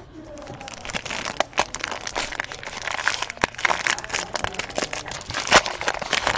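Plastic shrink-wrap crinkling and crackling as it is worked off a sealed trading-card box: a dense, uneven run of small crackles and clicks.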